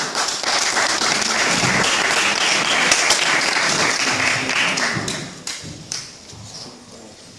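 Audience applauding, a dense clatter of clapping that dies away over the last couple of seconds.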